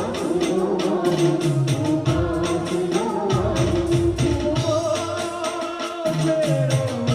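Adivasi band music: a fast, steady percussion beat of about four strikes a second, with jingling, tambourine-like hits, under a held melody line that slides gently in pitch, with singing.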